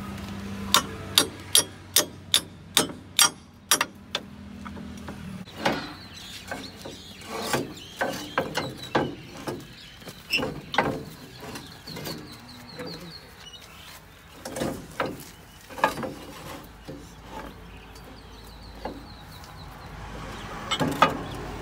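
Steel tractor cage wheel and drawbar hitch being handled: a quick even run of sharp metallic clicks, about three a second, for the first few seconds, then irregular metal knocks and clanks as the cage wheel's steel bars are moved against the hitch.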